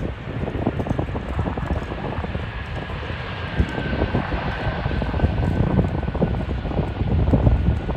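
Jet airliner's engines with a high whine that slowly falls in pitch, over heavy wind buffeting on the microphone.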